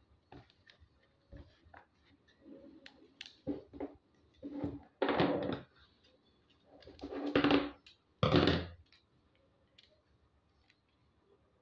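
Sheets of white paper being folded and creased by hand: scattered light taps and knocks, then three rough rubbing, rustling strokes about a second long each, midway through.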